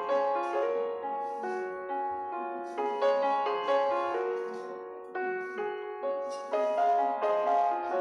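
Background music: a gentle piano melody of notes struck one after another, each fading away.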